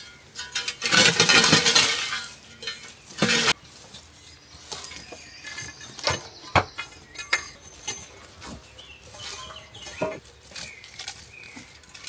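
Scrap metal pieces, cast iron and aluminium, clanking and rattling as they are handled and dropped. There is a loud crashing rattle about a second in, then sharper single clanks spaced a few seconds apart. Hens cluck now and then.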